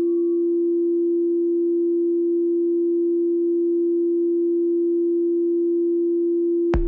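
Steady electronic drone of close-pitched low sustained tones with a fast, even pulsing wobble on top, played live in an experimental noise set. Right at the end a hard electronic kick-drum beat cuts in.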